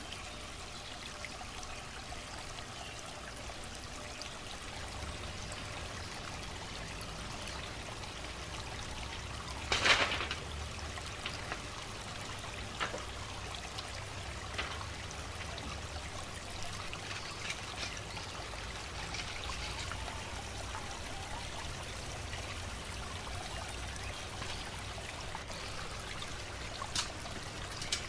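Water trickling steadily, with one sharp knock about ten seconds in and a few light clicks near the end.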